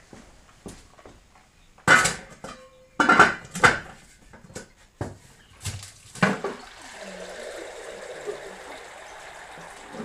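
A cooking pot is knocked and clunked as it is set down and tilted, then from about six and a half seconds in water pours steadily out of it onto tiles and into a drain channel. It is the cooking water being drained off boiled potatoes.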